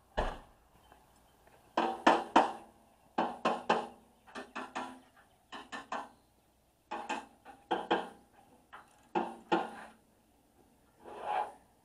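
Hammer striking the steel of a flail mower to free a stuck part: repeated sharp blows in quick runs of two to four, each with a short metallic ring.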